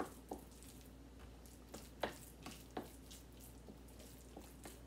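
A utensil stirring and mashing soft sweet potato mash in a bowl, mixing in brown sugar, with a few soft clicks where it taps the bowl.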